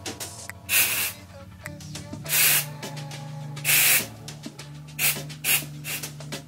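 Aerosol dry texturizing spray (Living Proof Full Dry Volume Blast) hissing from the can in repeated short bursts: three longer sprays in the first four seconds, then several quicker puffs, as it is worked through curled hair for volume.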